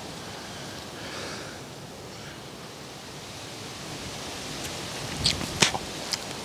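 Steady outdoor hiss of wind and rustling leaves, with a few sharp clicks a little past five seconds in and one more shortly after, as ripe cherries are plucked from a cherry tree's branch.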